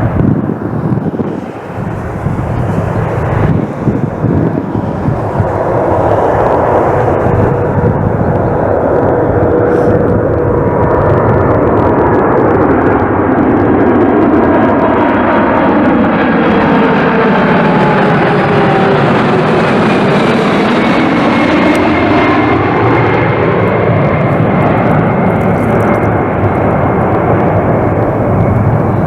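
A Boeing 747-400 freighter's four jet engines, loud and steady as it comes in to land and passes close by. Its engine tones glide down and then rise again about two-thirds of the way through.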